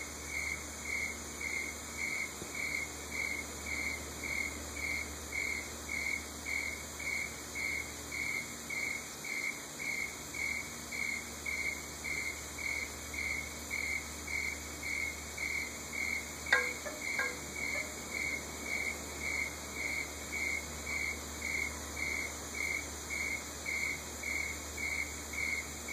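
Cricket chirping steadily, one high-pitched chirp repeating about three times every two seconds. A single sharp click sounds about two-thirds of the way in.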